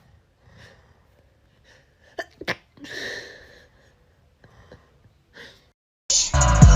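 A woman sneezing: soft breaths, then a sharp explosive sneeze with a noisy exhale about two and a half seconds in, followed by quieter sniffs. A sudden, much louder burst of sound comes in near the end.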